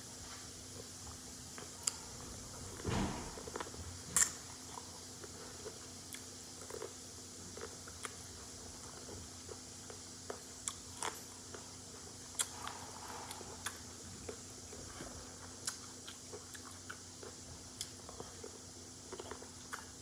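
Close-miked eating sounds from a seafood boil mukbang: chewing, lip smacks and small clicks and taps of food and fingers, scattered through, with a louder knock about three seconds in and a sharp click about a second later, over a faint steady hum.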